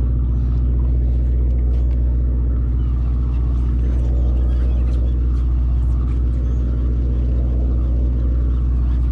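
Sportfishing boat's engine running steadily with a low, even hum.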